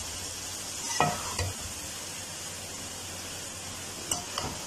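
Okra and potatoes sizzling in masala in a metal kadai while a slotted spoon stirs them. The spoon scrapes the pan about a second in and twice near the end.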